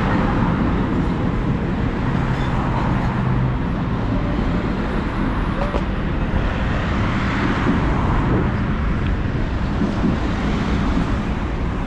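Steady road traffic: motor vehicles running past in a continuous stream, with a low engine hum under the tyre and traffic noise.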